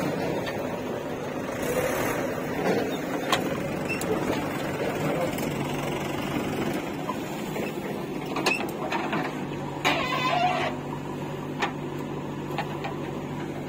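JCB 3DX backhoe loader's diesel engine running steadily under load as the backhoe digs soil and dumps it into a tractor trolley. A few sharp knocks of bucket and clods cut through, with a brief louder rattle about ten seconds in.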